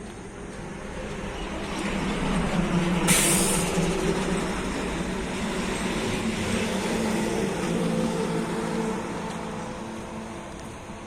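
A motor vehicle's engine hum swells up over the first couple of seconds, holds, and fades toward the end, like a vehicle passing close by. A short sharp hiss comes about three seconds in.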